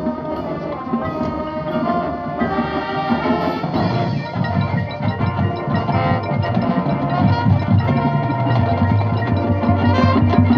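Band playing music with percussion; the low notes grow fuller and louder about four seconds in.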